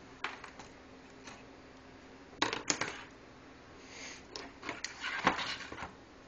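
Light metallic clinks and clatter of homemade sheet-metal arm pieces being handled and set down on a desk: a few small taps in the first second and a half, a louder burst about two and a half seconds in, and a longer rattle around five seconds in.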